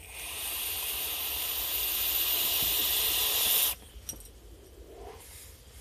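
Long draw on a single-coil rebuildable dripping atomizer (RDA) with two airholes open. A steady hiss of air and vapor rushes through the atomizer for about three and a half seconds, growing slightly louder, then stops sharply.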